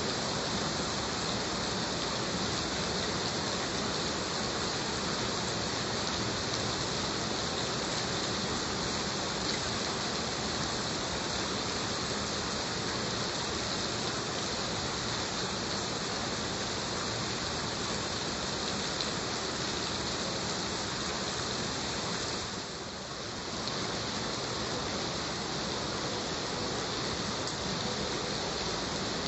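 Heavy rain falling steadily, an even hiss of dense drops with no thunder, dipping briefly in loudness about three-quarters of the way through.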